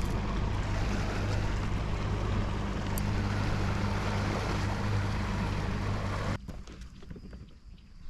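Outboard motor of a passing fishing boat running steadily at cruising speed, a low even hum with water noise, cutting off abruptly about six seconds in.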